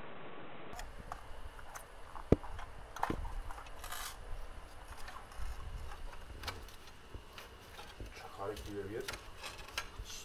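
A moment of steady hiss, then scattered clicks, taps and light scrapes of small hard objects being handled on a cobbled street, with one sharp knock about two seconds in. A brief voice is heard near the end.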